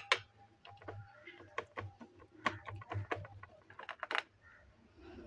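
Light, irregular clicks and taps, several a second, as hands pat and press a soft semolina-and-potato mixture flat into a steel tin, fingers and rings knocking against the metal.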